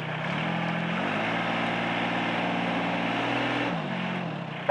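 Small diesel engine of a truck-mounted forklift revving up from idle, holding the higher speed for a few seconds, then dropping back toward idle, as when the engine is throttled up to drive the hydraulics. A short knock comes at the very end.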